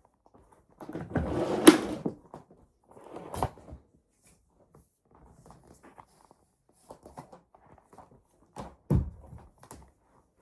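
Handling clatter from a Henry vacuum cleaner's hose and tools being picked up and fitted before it is switched on: rustling with a few sharp plastic clicks and knocks, the loudest under two seconds in, another about three and a half seconds in and a thud near the end.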